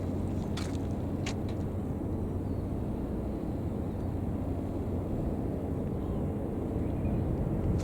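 Steady low engine hum with a few sharp clicks in the first second and a half.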